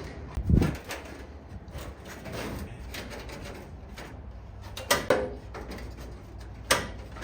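Sheet-metal repair piece being handled and fitted up under a car's rear wheel arch: a short low thud about half a second in, then a few sharp knocks and light clatter near five seconds and again shortly before the end.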